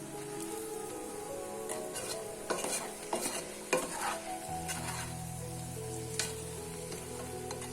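Background music with sustained, slowly changing notes, over which a cluster of sharp clicks and crackles sounds from about two to four and a half seconds in, with one more click a little after six seconds.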